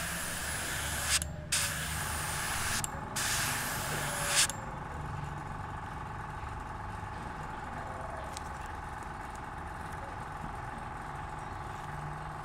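Airbrush spraying paint in three hissing bursts of about a second each with short breaks, stopping about four and a half seconds in. A steady low hum continues underneath.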